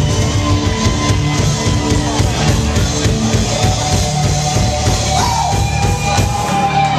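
Live rock band playing loud, with drums and electric guitars and a shouted vocal over them.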